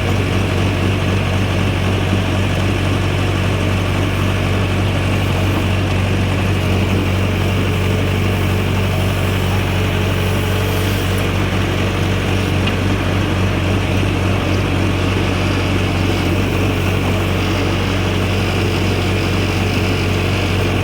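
Backhoe's diesel engine running steadily, a constant low hum that holds the same pitch throughout.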